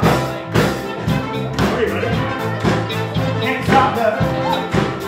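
Live band playing an upbeat pop song with a steady beat of about two a second, with a singer's voice over it.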